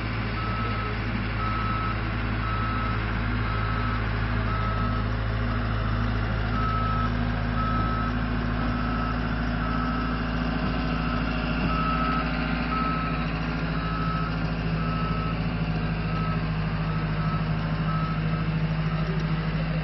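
Caterpillar compact track loader running under load while it backs up with a manufactured home section, its backup alarm beeping about once a second; the beeping stops near the end.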